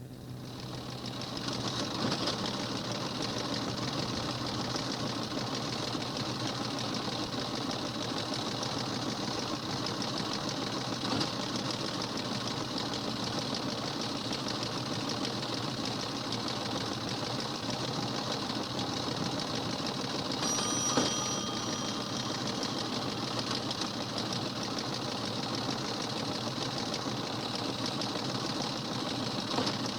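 A machine running with a steady, rapid mechanical clatter that starts right away. There is a short bright ring about two-thirds of the way through.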